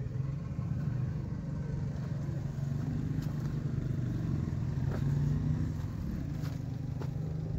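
Tractor engine running steadily with a low, rough hum that swells slightly about five seconds in. A few faint clicks are heard over it.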